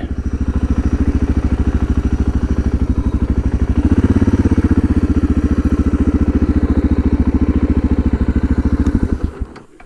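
Suzuki DR650's single-cylinder engine idling with an even, rapid pulse. It gets a little louder about four seconds in, then stops near the end.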